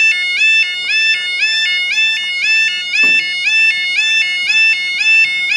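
Level crossing warning alarm sounding: a noisy electronic tone that steps rapidly and repeatedly between two pitches, the signal that the barriers are lowering ahead of a train.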